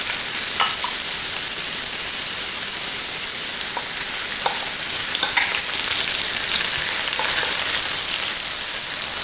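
Ginger strips and green onion sizzling steadily in hot oil in an electric wok, with a few light clicks from stirring against the pan.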